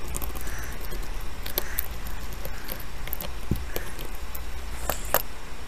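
Scattered small clicks and ticks of a screwdriver working out small corner screws, over a steady low hum.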